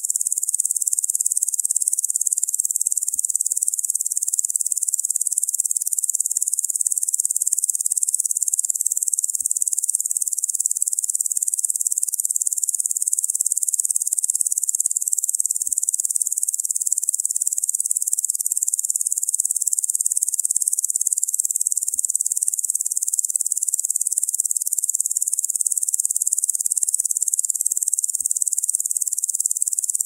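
Dense insect chorus given as locusts: one steady, high-pitched chirring hiss with nothing low beneath it, never rising or falling.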